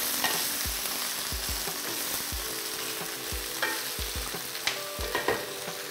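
Kienyeji chicken pieces sizzling in hot oil in a non-stick pan, browning over high heat, while a wooden spoon stirs them and knocks against the pan about once a second.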